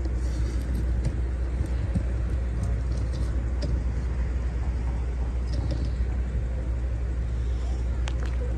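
Tow truck engine idling with a steady low rumble.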